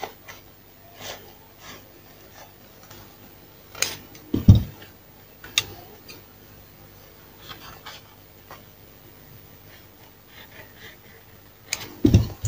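Paper pattern rustling and being cut with tailor's shears: scattered soft snips and handling noises, with a louder dull knock about four seconds in and another near the end.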